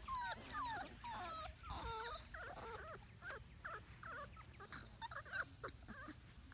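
Four-week-old Labrador Retriever puppies whimpering and squeaking, many short whines from several pups overlapping one after another.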